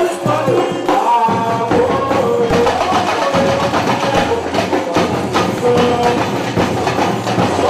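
Samba music: a dense, fast percussion groove with a wavering melody line over it.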